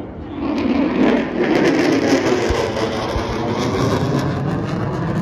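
Aircraft flying past, its engine noise swelling loud about half a second in and holding, with a slowly falling pitch and a crackle on top.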